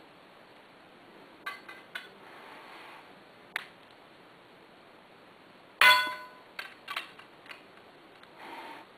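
Knipex Cobra pliers working on a 7/8-inch Type L copper pipe: a few sharp metallic clicks, then about six seconds in a loud metal clank that rings on briefly, followed by lighter clicks and a short scrape near the end.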